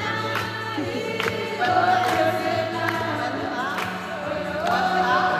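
A choir of voices singing a gospel song, with sharp percussive hits here and there.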